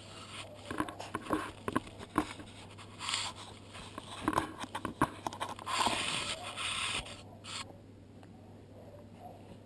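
Pembroke Welsh corgi puppies shuffling on a fleece blanket right against the microphone: scattered small clicks and scrapes, then about two seconds of rustling past the middle.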